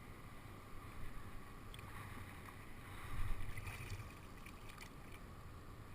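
Shallow river water sloshing, with low wind rumble on the microphone; it grows louder for a moment about three seconds in.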